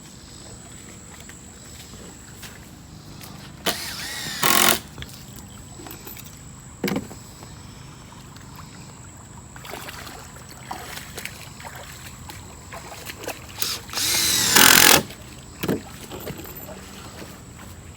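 Cordless power drill driving screws into wooden dock boards: two whirring runs of about a second each, one around four seconds in and one near the end, with a few short knocks of wood and tools between them.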